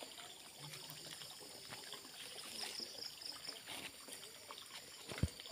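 Faint sloshing and trickling of muddy pond water as a man wades waist-deep, feeling for fish by hand. A dull low bump near the end.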